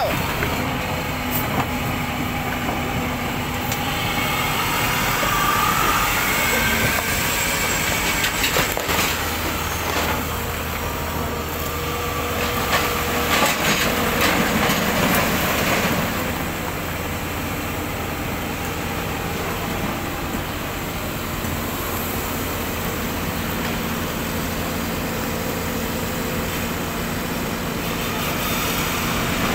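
Hino dump truck's diesel engine running steadily while its hydraulic hoist raises the tipper bed. About eight to sixteen seconds in, rock and earth clatter and rumble as the load slides out of the bed.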